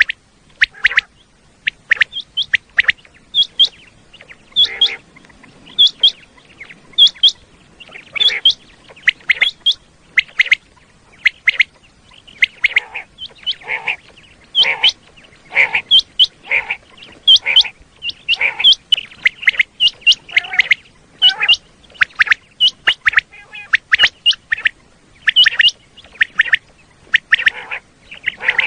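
Common quail calling: a long run of short, sharp call notes in quick succession, repeating over and over.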